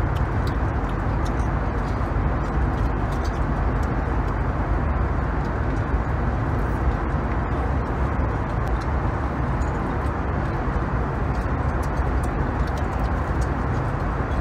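Steady cabin noise of an Airbus A320neo airliner in cruise: the even, low drone of engines and airflow. Light, scattered clicks of cutlery against the plastic meal tray.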